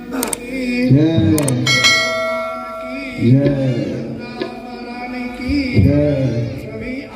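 A metal puja bell is struck a few times in the first two seconds and rings on for about a second after the last strike, over a man chanting mantras.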